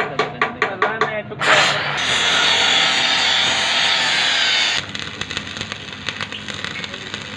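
After a brief run of rapid ticks, an angle grinder's cutting disc cuts through steel flat bar with a loud, steady hiss that stops suddenly. It is followed by the dense, irregular crackle of stick (arc) welding on steel.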